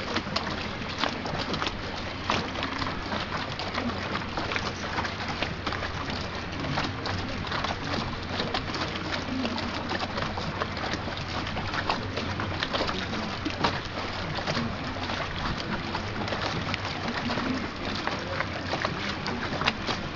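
Strong wind and heavy sea around the frigate ROCN 914 Luoyang, a steady rushing, crackling noise full of small gusts and spray hits, with a steady low hum underneath.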